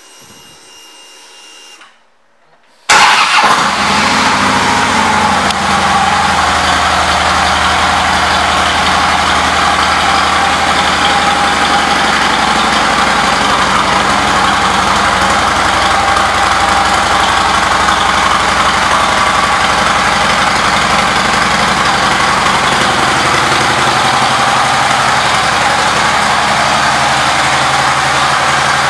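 2012 Harley-Davidson Street Glide's V-twin engine starting about three seconds in. It catches at once, runs at a fast idle that settles lower within a couple of seconds, then idles steadily.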